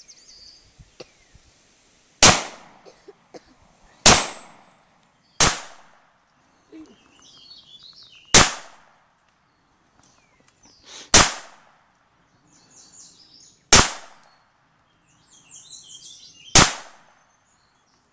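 Seven single shots from a small stainless semi-automatic pistol, fired one at a time at uneven gaps of about one to three seconds, each a sharp crack with a short ringing tail.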